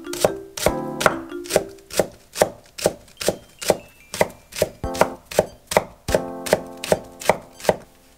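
A rectangular vegetable knife chopping green onion on an end-grain wooden cutting board: even knocks about two and a half a second, stopping just before the end.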